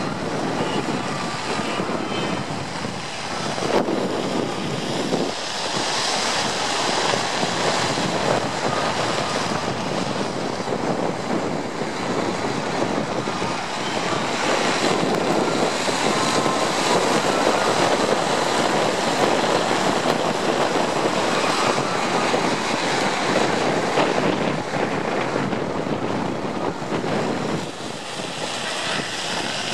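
Wind rushing over the microphone: a loud, noisy rush with no clear tone that swells and eases in gusts.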